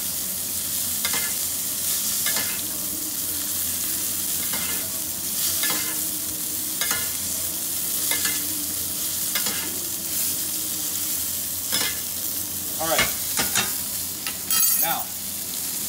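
Steak sizzling hard in butter in a hot cast-iron skillet, with a metal spoon scooping up the fat and basting it over the meat in short strokes about every second or so. The spoon strokes are loudest near the end.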